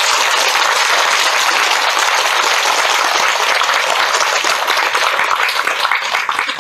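An audience applauding, a steady dense clapping that dies away near the end.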